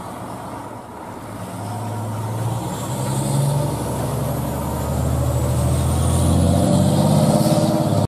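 Pierce aerial-ladder fire truck's diesel engine pulling away under power, growing steadily louder as it goes.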